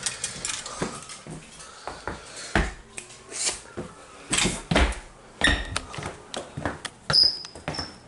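Handling clatter: clothes hangers knocking and scraping on a closet rod, clothes rustling, and footsteps on a hardwood floor. A brief high squeak comes twice about seven seconds in.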